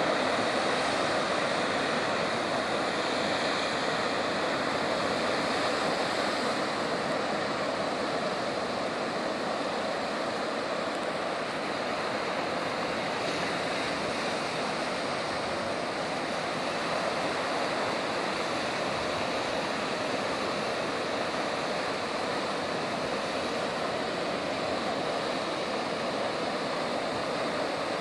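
Sea surf breaking and washing around coastal rocks: a steady rush of water, a little louder in the first few seconds.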